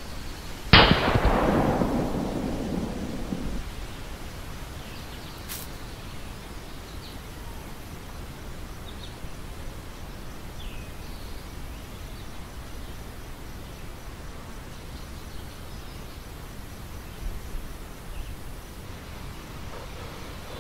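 A single sudden loud bang about a second in that rumbles away over about three seconds, over a steady outdoor hiss.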